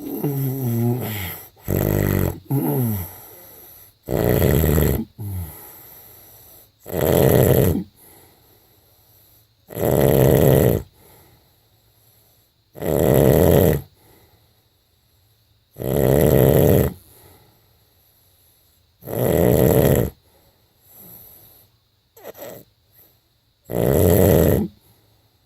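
A man snoring in his sleep: a loud snore about every three seconds, each lasting about a second. In the first few seconds the sounds are more irregular, with a wavering pitch.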